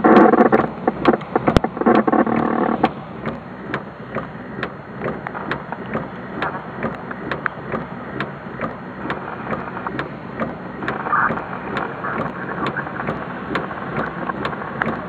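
Heavy rain falling: a steady hiss with many irregular sharp drop ticks close to the microphone. A louder droning sound stops about three seconds in.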